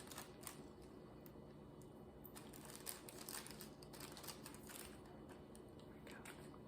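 Faint, scattered light clicks and ticks of small plastic diamond-painting drills being handled and poured during kitting up, over a faint steady room hum.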